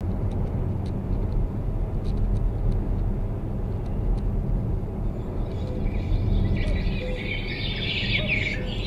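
Steady low rumble of a car's road and engine noise heard inside the cabin while driving on a slushy, snow-covered road. About halfway through, a high, wavering chirping sound joins it.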